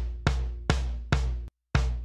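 Soloed kick drum from a mix, hitting a little more than twice a second, each hit a sharp click with a long low boom that dies away. The sound cuts out briefly about one and a half seconds in. The kick is mixed unusually wide in stereo, with more energy on the right.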